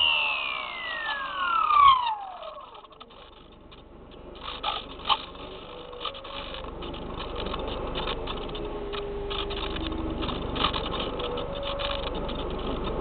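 Whine of a SpyHawk RC plane's electric motor and propeller falling steeply in pitch and dying away about two seconds in. After a short lull comes the steady rush of wind as the plane glides, with scattered clicks.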